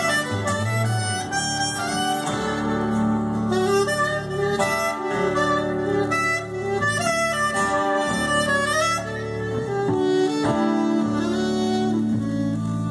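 A live acoustic band playing an instrumental passage: a soprano saxophone carries the melody over strummed acoustic guitars and upright bass.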